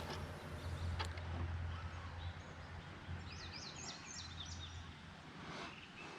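A songbird sings a quick run of about six chirping notes near the middle, over a steady low rumble, with two sharp knocks in the first second.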